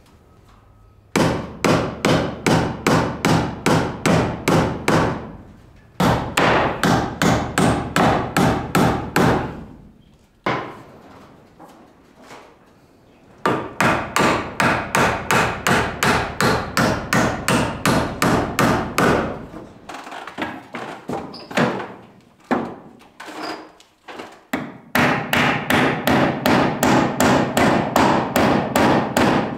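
Hammer driving nails into wooden boards: quick runs of even strikes, about four a second, broken by short pauses, with a few slower scattered blows a little past the middle.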